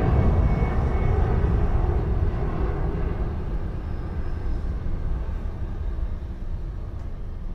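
Jet airliner engines: a low, noisy rumble that slowly fades away.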